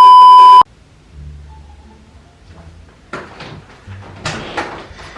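A loud, steady censor bleep that cuts off abruptly about half a second in. Then a low hum and a few short clattering handling noises about three and four seconds in.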